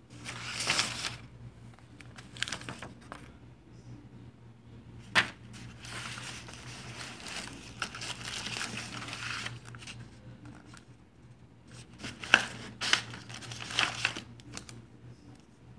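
Sheets of paper and cut-out paper templates rustling and crinkling as they are handled and shifted about, in irregular stretches, with two sharp taps about five and twelve seconds in. A steady low hum runs underneath.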